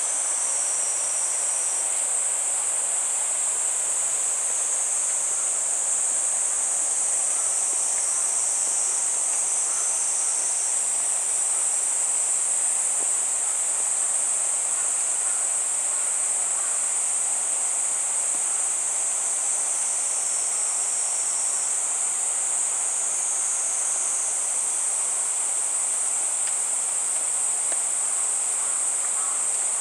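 Forest insects shrilling in a steady, unbroken high-pitched chorus, over a soft outdoor background hiss.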